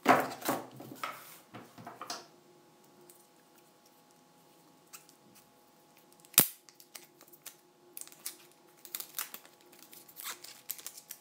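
Hand-handling noises from unboxing: paper and a cardboard box rustling and scraping over the first two seconds, one sharp click about six seconds in, then light rustling and small clicks as a coiled power cable is handled.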